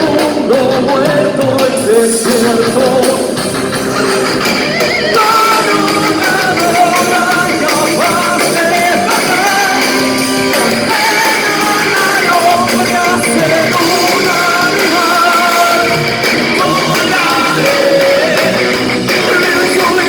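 Rock band playing live: a lead vocal sung over electric guitar accompaniment.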